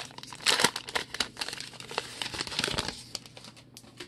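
Wrapper of a Topps Gypsy Queen baseball card pack crinkling and tearing as it is peeled open by hand. The crackling is loudest about half a second in and thins out after about three seconds.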